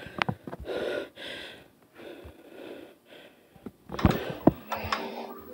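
A boy breathing hard close to the microphone in three gusts, winded from dancing, with a few light clicks.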